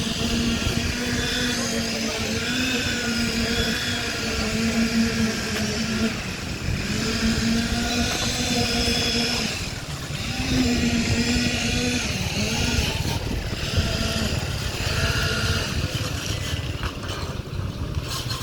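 Construction machinery running with a low rumble and a steady pitched whine that drops out briefly several times.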